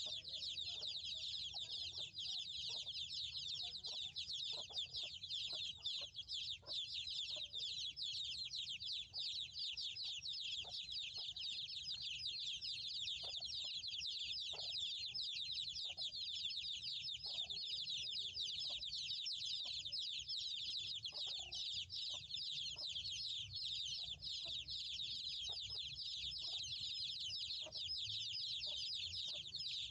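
Chickens: a dense, continuous high cheeping with short lower clucks scattered throughout.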